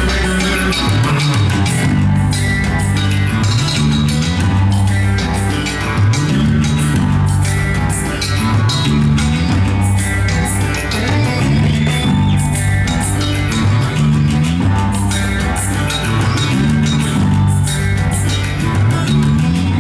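Live rock band playing: a repeating bass guitar riff with sliding notes, guitar, and steady percussion hits.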